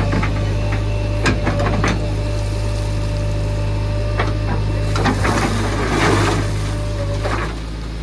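JCB 3DX backhoe loader's diesel engine running steadily under hydraulic load as the backhoe arm digs and lifts a bucket of soil, with a steady whine that fades out near the end. A few sharp clanks from the arm and bucket, and a stretch of rattling, scraping noise around five to six seconds in.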